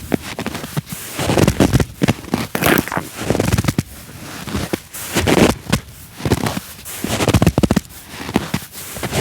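Footsteps crunching and creaking in cold, dry snow, one crunch about every second at a steady walking pace.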